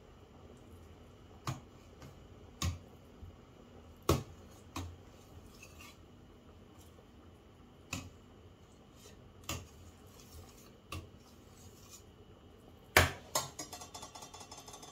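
Metal ladle clinking against a stainless steel stockpot while skimming foam off simmering soup: separate sharp clinks every second or so, the loudest near the end, followed by a quick run of light rattling taps.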